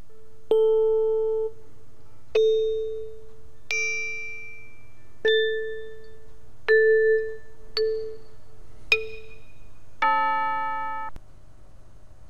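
Synthesizer playing the same note eight times in a row, each time with a different instrument voice, each note starting sharply and fading away over about a second. The notes differ only in their pattern of overtones, which is what makes them sound like different instruments; the last is the fullest and stops abruptly.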